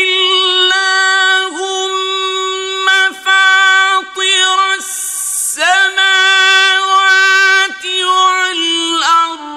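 Male Quran reciter chanting Arabic verses in melodic tajweed style. A single high voice holds long, steady notes with brief ornamental pitch turns, pausing for short breaths every second or two.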